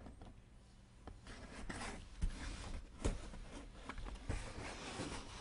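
Hands handling and opening packaging: rustling and scraping that grow louder about a second in, with a few sharp knocks.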